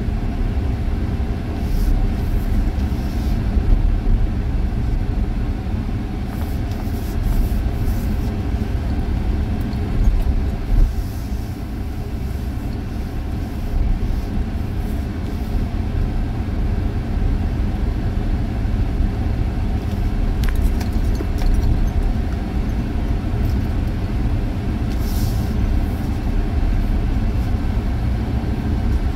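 Steady low rumble of a vehicle's engine and tyres heard from inside the cab while driving, with a few faint brief rattles.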